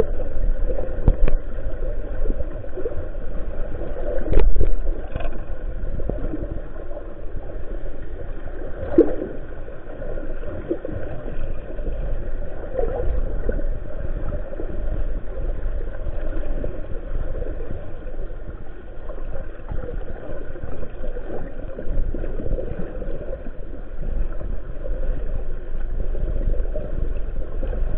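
Muffled underwater noise picked up by a submerged camera: a steady low rumble and wash of moving water, with a few short knocks in the first ten seconds or so.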